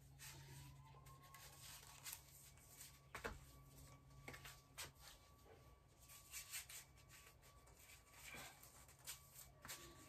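Near silence: room tone with a faint steady hum and a few faint, scattered clicks and rustles.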